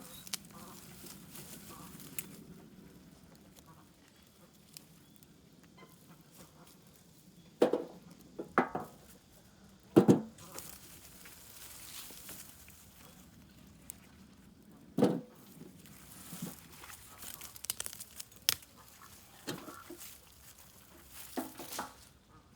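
Chickens clucking: a few short calls spaced several seconds apart, the loudest about halfway through, with fainter ones near the end.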